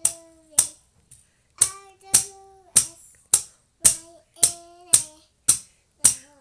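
A plastic toy hammer repeatedly striking the balls of a pound-a-ball tower toy, about eleven sharp knocks at roughly two a second. Short held notes at changing pitches sound between the knocks.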